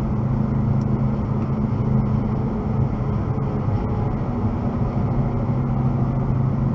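Car cruising at highway speed, heard from inside the cabin: a steady engine drone with even tyre and road noise.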